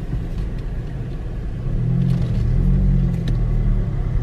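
Car's engine and road rumble heard from inside the cabin as the car pulls away and speeds up, the low engine note growing louder a little before halfway through.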